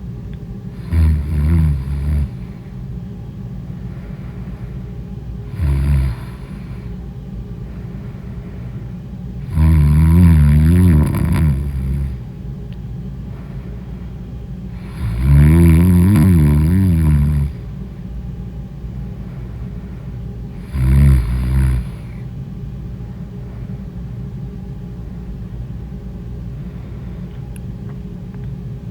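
A person snoring in deep sleep: five loud, rasping snores at irregular intervals, the ones about ten and fifteen seconds in long and wavering, the others short. A steady low hum runs underneath throughout.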